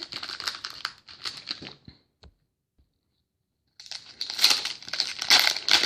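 Foil trading-card pack wrapper crinkling and tearing as it is handled and opened. It breaks off into dead silence for about a second and a half near the middle, where the recording was paused, then the crinkling resumes.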